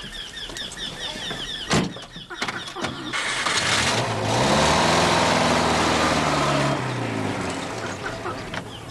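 A car door slams shut about two seconds in. About a second later an old saloon car's engine starts and the car pulls away: the engine grows loud, its pitch rises and holds, then fades as it drives off.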